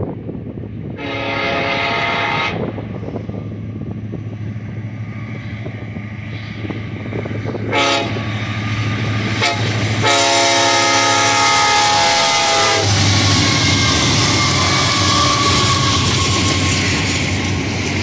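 Freight locomotive air horn sounding for a grade crossing: a long blast, then a short one about eight seconds in, then a long blast of about three seconds. The train then passes close by with loud rumbling, wheel noise and rattling from the double-stack container cars.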